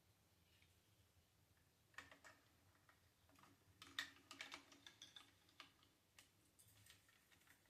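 Faint, irregular clicks and taps of small plastic parts being handled and fitted together, the rider figure's leg going onto the RC motorcycle, with a cluster of clicks about halfway through.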